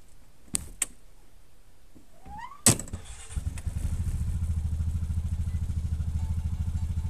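Two clicks, then an ATV's electric starter cranks briefly with a short rising whine and a sharp click, and the engine catches about three seconds in and settles into a steady, pulsing idle.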